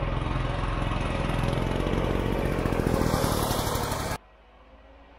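1967 Ski-Doo Olympique's two-stroke engine running and revving up as the snowmobile pulls away. The sound cuts off suddenly about four seconds in, leaving only a faint hum.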